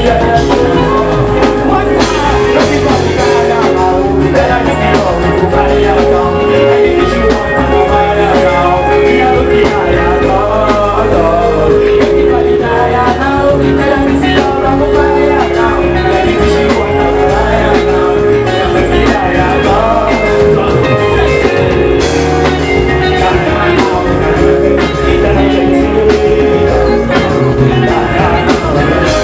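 Loud live music with a singer's voice over the band or backing track, steady throughout.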